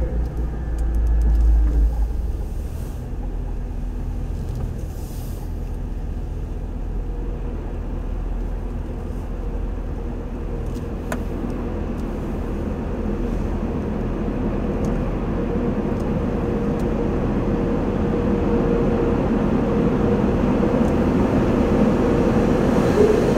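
Inside a car's cabin at an automatic tunnel car wash: a steady low hum of the car and the wash machinery, with a faint steady whine. Over the second half, water spray striking the windshield and body builds up and grows louder.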